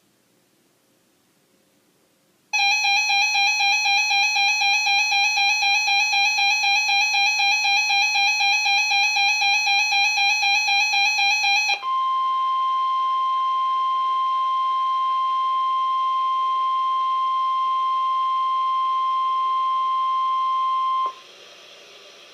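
Emergency weather alert: a rapidly pulsing electronic alarm beep, about five pulses a second, sounds for about nine seconds. It is followed by the NOAA Weather Radio 1050 Hz warning alarm tone, one steady pure tone held for about nine seconds, which then cuts off to faint hiss.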